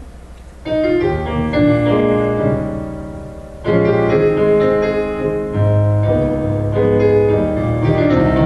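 Piano playing a slow introduction, starting about a second in: struck notes and chords that ring and fade, with a fresh chord about three and a half seconds in.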